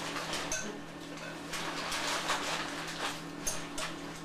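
Spoon scraping and clicking irregularly as a toddler scoops food, over a steady low electrical hum.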